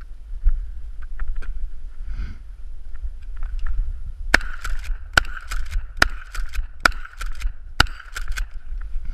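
Mossberg 590A1 12-gauge pump-action shotgun fired five times, about a second apart, starting a little under halfway through, with quieter clacks between the shots as the pump is worked. Before the shots there are a few light handling clicks.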